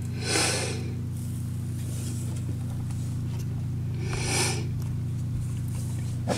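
Steady low hum, with two short soft hissing puffs about four seconds apart.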